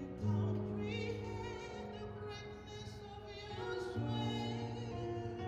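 Music in a classical, operatic style: a singing voice holding long notes with vibrato over a low sustained accompaniment.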